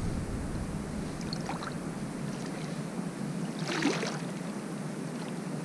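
Shallow water sloshing around a wading angler's legs, with two short soft splashes, one about a second and a half in and a louder one about four seconds in.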